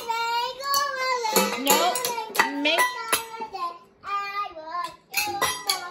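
A child singing without clear words, the voice sliding up and down in pitch, over irregular stick strikes on a Mendini junior drum kit and its small cymbal.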